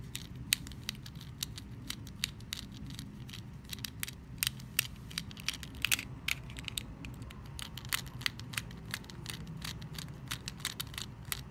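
Small Phillips screwdriver turning a tiny screw out of a plastic thumb-throttle housing: many small, irregular clicks and scrapes, several a second.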